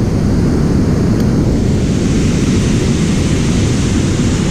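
Steady rush of river water spilling over a dam and churning below it, with wind buffeting the microphone.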